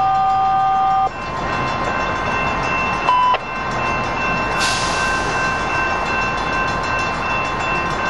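Horn of an approaching Coaster commuter train sounding, cutting off about a second in, then one short toot about three seconds in, over the train's steady running noise; a brief hiss about four and a half seconds in.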